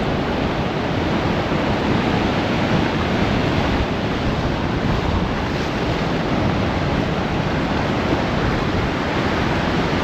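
Waves breaking on a sea beach with strong wind buffeting the microphone: a steady, dense rush of noise with a heavy low rumble.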